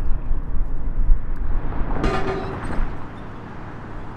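Steady low outdoor rumble, loud for the first three seconds and then easing, with a short pitched call at about two seconds in.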